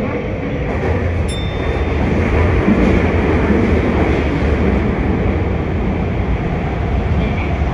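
Subway train running through a tunnel, heard from just behind the cab: a steady rumble of wheels on rail and traction motors that swells slightly a couple of seconds in. A brief high click sounds about a second in.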